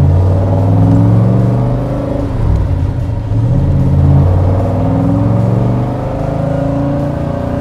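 1967 Corvette's 435 hp 427 tri-power V8 running through its side-exit exhaust under way, heard from inside the cabin. The engine note rises and falls several times as the car accelerates.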